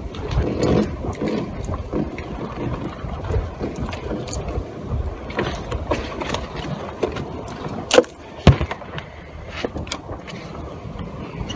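Wind buffeting a chest-mounted camera's microphone, with rustling handling noise as fishing tackle is handled, and two sharp knocks about half a second apart roughly eight seconds in.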